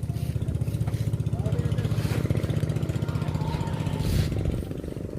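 A small engine running steadily at an even, low speed, with faint voices over it.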